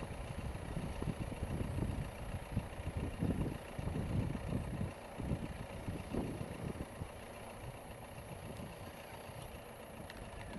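Distant Airbus A320-200 jet engines on final approach: an uneven low rumble with a faint steady whine above it, easing off somewhat about halfway through.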